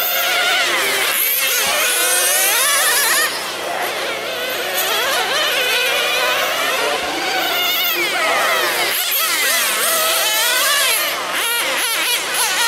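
Several nitro RC sedans racing, their small glow-fuel two-stroke engines buzzing at high pitch and revving up and down in overlapping rising and falling whines.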